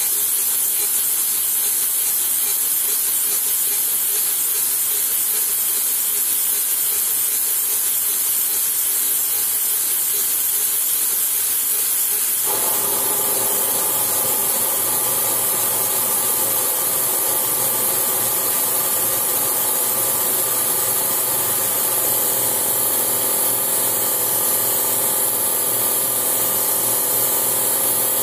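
Sanford surface grinder's freshly balanced wheel grinding a planer gauge on the magnetic chuck: a steady high hiss of abrasive on steel. About twelve seconds in, a steady hum of several pitches comes in abruptly and holds.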